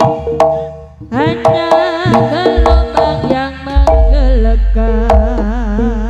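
East Javanese jaranan-style gamelan music accompanying a barong dance. Hand drums (kendang) play sharp strokes under a wavering melody line, with deep gong booms a couple of times.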